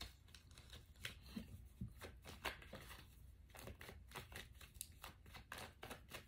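Faint, irregular clicks and rustles of tarot cards being handled, about three a second.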